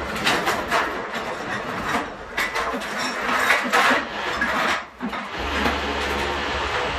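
Irregular knocks and clatter of hand work during an air-conditioner installation, with a steady low hum coming in about five seconds in.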